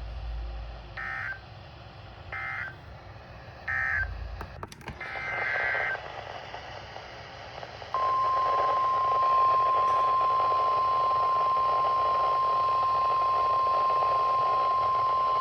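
NOAA Weather Radio alert signalling over a radio receiver: three short buzzes of SAME digital data tones about a second apart, the end-of-message code, then a longer data buzz. About eight seconds in, the steady 1050 Hz weather-radio warning alarm tone starts and holds over radio hiss.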